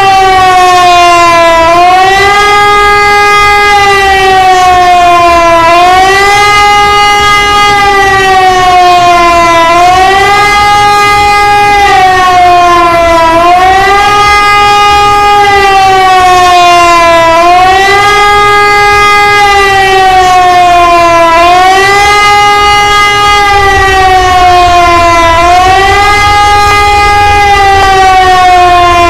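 Loud siren-like wailing tone that rises quickly, then slides slowly back down, repeating about every four seconds. A low rumble runs underneath and grows louder near the end.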